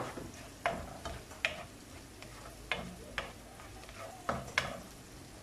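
Slotted spoon stirring chopped garlic and onion sautéing in oil in a nonstick frying pan: a faint steady sizzle with about six sharp knocks of the spoon against the pan.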